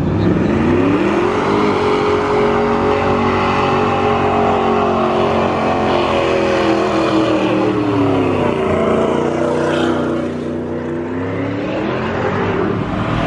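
A vehicle engine doing a burnout: it revs up in the first two seconds and is held at high revs, eases down about eight to ten seconds in, then climbs again near the end.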